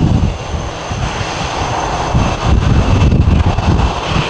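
Jet engines of an Airbus A340-300 (four CFM56 turbofans) running at taxi power: a steady whine over a low, uneven rumble.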